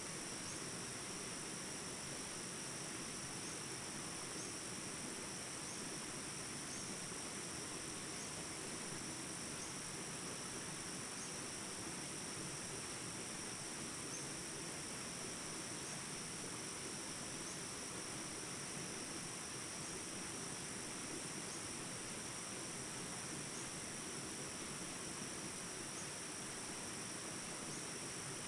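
Jungle ambience recording: a steady chorus of insects chirring in high, unbroken tones over the even rush of small rapids, with a faint chirp about every second and a half.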